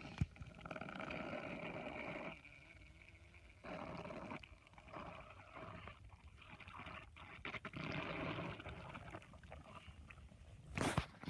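A person's stomach growling and gurgling in a string of uneven rumbles, each lasting a second or two. There is a sharp click just after the start and a brief, louder noise near the end.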